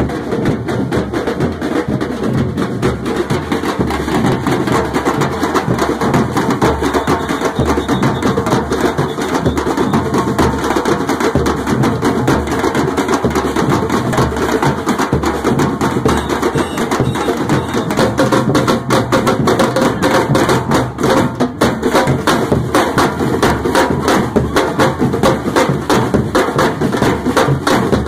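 Street drum band playing a fast, steady rhythm on tall hand drums, smaller stick-played drums and bass drums.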